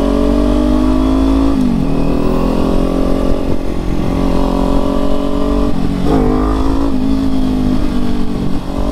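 Kawasaki Ninja sport motorcycle engine running under way. Its pitch climbs slowly, drops sharply about one and a half seconds in as the rider shifts up, then holds mostly steady, with a brief dip and rise about six seconds in.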